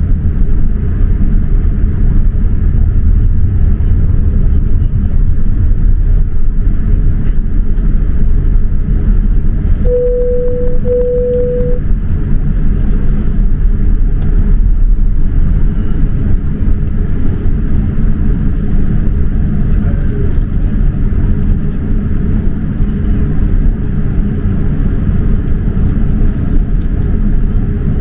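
Steady low rumble inside the cabin of a Boeing 787-9 airliner taxiing on its Rolls-Royce Trent 1000 engines. About ten seconds in come two short beeps of the same pitch.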